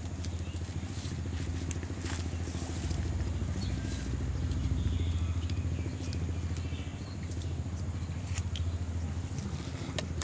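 A steady low motor hum, with a few faint clicks and scrapes of hands handling a hooked fish and a plastic box.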